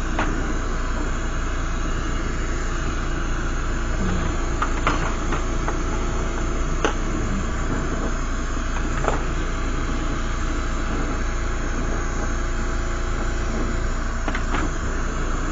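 Lampworking bench torch burning with a steady hiss while a glass ball is heated in its flame, with a few faint light ticks.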